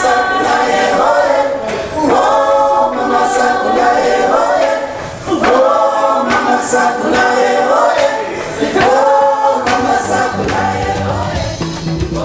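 A group of voices singing unaccompanied in harmony, in phrases about two seconds long. Near the end a bass line comes in under the voices.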